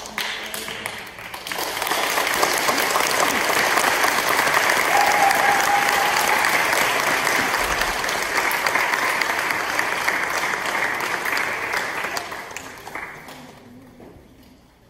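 Audience applauding, swelling about two seconds in, holding steady, then dying away near the end.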